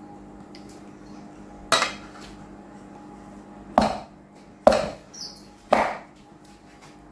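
A metal muffin tin full of batter knocked down on the counter four times, each a sharp clank that dies away quickly, over a steady low hum.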